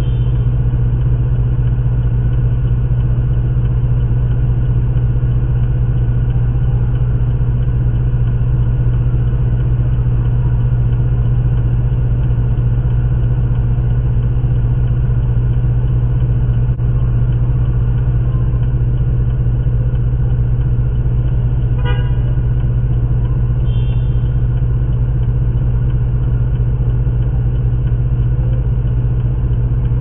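Steady low drone inside a stationary car. A short car-horn toot sounds about two-thirds of the way through.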